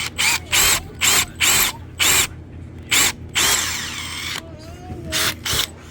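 Cordless drill triggered in a string of short bursts, with one longer run about three seconds in that winds down, boring pilot holes for screws in a wooden door jamb.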